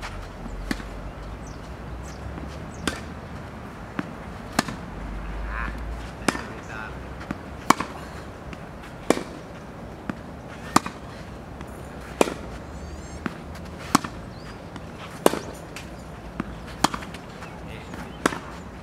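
Tennis rally: a tennis ball struck by rackets with a sharp pock about every second and a half, with fainter ball bounces on the court between the hits.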